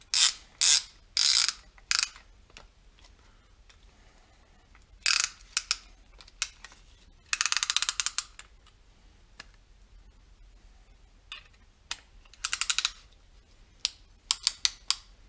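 Ratchet-type piston ring compressor being tightened around a piston with its key: short bursts of rapid ratchet clicks with pauses between them, the longest run about halfway through. The band is squeezing the piston rings into their grooves, ready for the piston to go into the bore.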